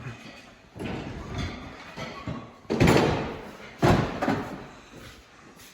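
Heavy thumps and knocks from manual tire-changing work on an implement tire and rim: a couple of lighter knocks, then two loud blows about a second apart near the middle.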